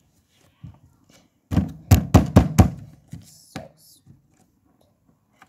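Hands working a crunchy slime on the tabletop close to the microphone: a quick run of four or five loud thuds and knocks about two seconds in, followed by a few fainter crackles.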